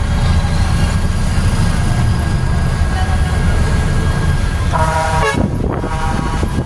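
Steady low rumble of a truck engine heard from inside the cab in slow traffic. A vehicle horn toots briefly about five seconds in, followed by a fainter toot.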